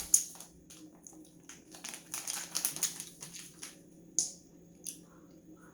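Soft, irregular clicks and crinkles from someone eating cotton candy and handling it, with a sharper click about four seconds in.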